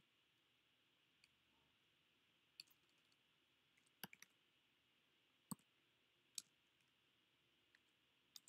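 Faint, scattered clicks of computer keyboard keys being typed, single keystrokes and a short cluster about halfway through, over near silence.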